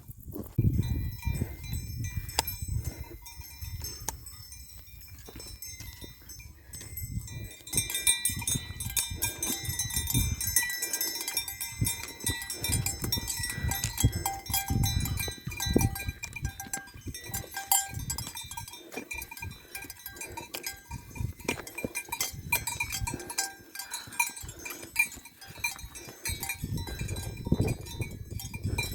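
Bells on grazing livestock clanking irregularly, several ringing at once, louder from about eight seconds in, over a low rumble.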